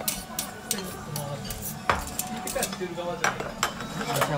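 Cutlery and dishes clinking in a quick run of sharp clicks and taps, loudest about two seconds in.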